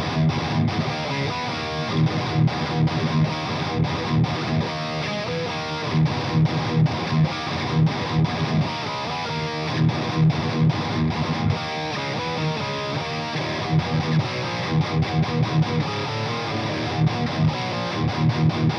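Overdriven electric guitar riffing, an LTD JM-II with Monty's Bethnal Green pickups tuned down to E flat, driven through a Boss OD-200 overdrive. It plays a chunky riff with frequent short, sharp chugs, with a drive that is not saturated but ballsy.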